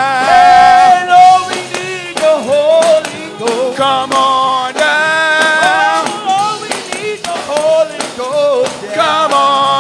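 Gospel music: a singer holds and bends long, wavering notes over accompaniment, with frequent sharp percussion hits throughout.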